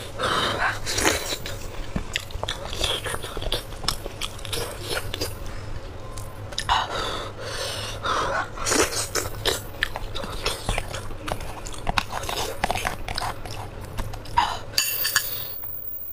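Close-miked eating sounds: chewing and biting on spicy braised sheep's head meat, a steady irregular stream of wet smacks and clicks.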